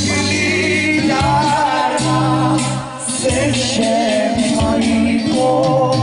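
A Macedonian folk song: a singer's melody over band accompaniment.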